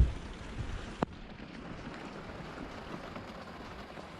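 Steady hiss of light rain falling, with a dull thump right at the start and a sharp click about a second in.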